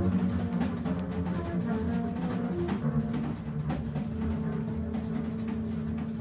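Live free-improvised jazz from drum kit, double bass and saxophone: held low notes under loose, scattered drum and cymbal hits, with no steady beat.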